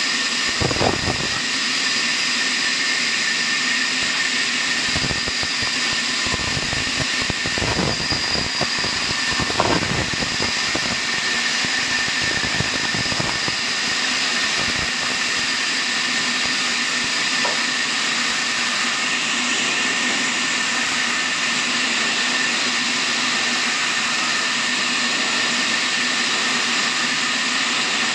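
Horizontal band sawmill running, its band blade cutting lengthwise through a log: a steady machine whine with a held high tone, and a few irregular low knocks and rumbles in the first dozen seconds.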